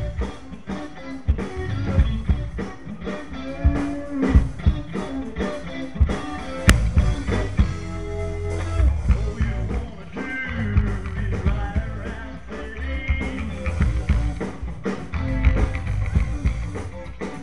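Live band playing rock music, led by electric bass and electric guitar.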